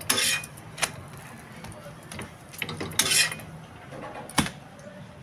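A utensil scraping and knocking against a black tawa as a cooked paratha is lifted off it: two short scrapes, one near the start and one about three seconds in, and two sharp knocks, one just under a second in and one a little past four seconds.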